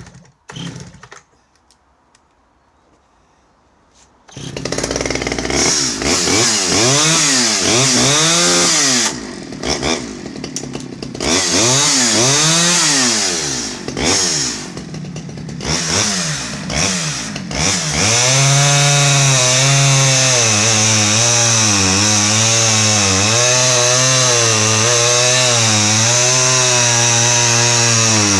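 Stihl 011 AVEQ 41cc two-stroke chainsaw starting about four seconds in, its throttle blipped up and down in repeated revs, then held at high speed from about eighteen seconds in with the pitch dipping and recovering, as when the chain bites into hard wood.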